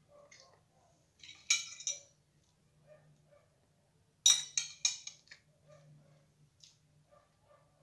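Fork clinking and scraping on a ceramic plate while cake is cut and eaten: a short cluster of clinks about a second and a half in, then a louder run of four or five quick clinks a little after four seconds.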